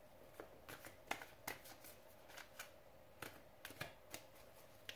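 Tarot cards being shuffled and handled: faint, irregular clicks and flicks of card stock, about a dozen over a few seconds.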